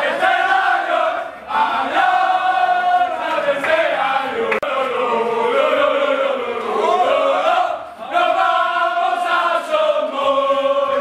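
A group of men chanting and singing a celebration song together, loud and in unison, with short breaks between lines about a second and a half in and again around eight seconds.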